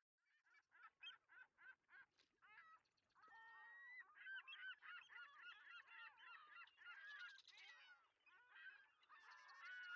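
A flock of birds honking and calling, faint: a few spaced calls at first, then a dense, overlapping chatter from about halfway through.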